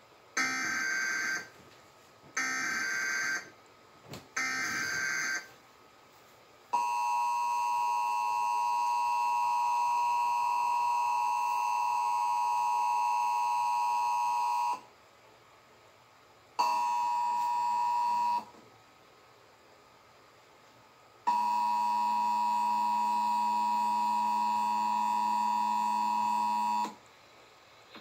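Emergency Alert System test signal from a television's speaker: three short bursts of digital data noise, the SAME alert header, then the steady two-tone attention signal. The tone holds about eight seconds, breaks off, comes back for about two seconds, and then again for about six seconds.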